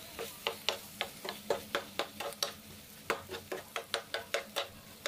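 Spatula scraping and knocking against a nonstick frying pan while stirring diced potatoes and tuna, in quick strokes about three or four a second.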